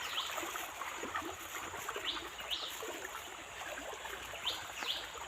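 River water flowing steadily, with a few short high chirps about two seconds in and again near the end.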